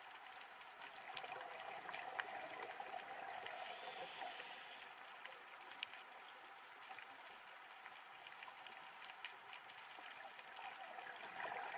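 Faint running water, a low trickle with scattered small ticks and one sharp click about six seconds in.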